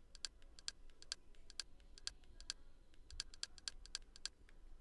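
Faint, quick, irregular clicking of keys or buttons pressed again and again to scroll through an on-screen menu, many clicks coming in close pairs.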